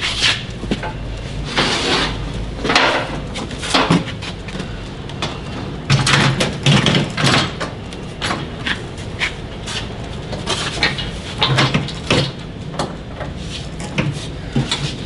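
Irregular knocks, bumps and scraping as a Miller Multimatic 255 welder is set down on its EZ-Latch welding cart and shifted until its feet sit under the clamps.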